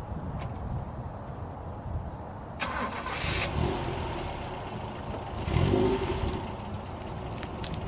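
Toyota Carina TA12's OHV four-cylinder engine running, recorded from outside the car, with two louder surges of engine noise about two and a half and five and a half seconds in.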